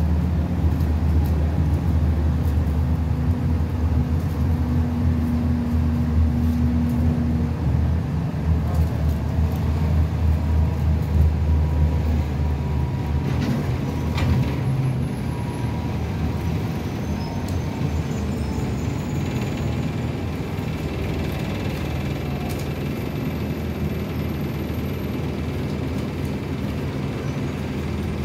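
Optare Solo single-deck bus's diesel engine heard from inside the saloon, at first pulling with a strong low drone, then dropping to a quieter, steady running note about halfway through as the bus slows in traffic. A few sharp clicks come just before the drop.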